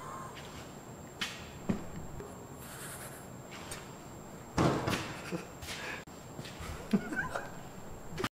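A man laughing under his breath in short, scattered bursts, with a louder burst about halfway through.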